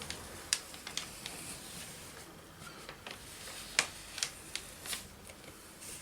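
Paper and a pen being handled on a craft table: a scatter of small, sharp taps and light paper rustles, coming in two clusters, one near the start and a busier one in the second half.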